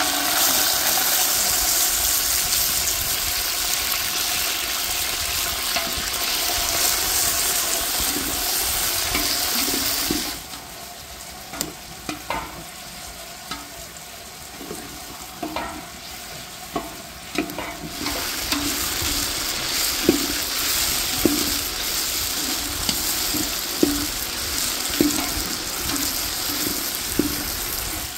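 Chopped onions tipped into hot oil in a large aluminium pot, sizzling loudly. About ten seconds in the sizzle drops away, leaving a wood fire crackling with scattered sharp pops. About eighteen seconds in the sizzle returns with the knock and scrape of a metal slotted spoon stirring the frying onions.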